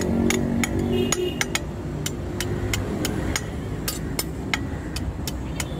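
Hand hammer striking hot leaf-spring steel on an anvil while forging a billhook's curved hook, in steady blows about three a second, some with a brief metallic ring. A low steady rumble runs underneath.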